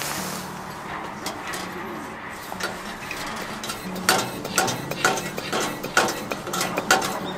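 Dishes and cooking utensils clinking and clattering, a run of sharp short knocks that come thickest in the second half.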